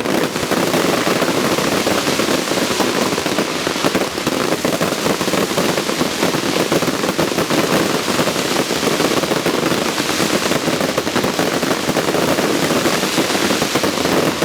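Fireworks display: a dense, continuous crackling of many small rapid bursts, steady throughout.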